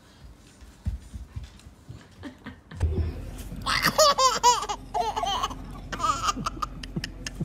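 A toddler laughing hard in a run of quick, high-pitched laughs, starting about four seconds in, after a few low thumps in an otherwise quiet stretch.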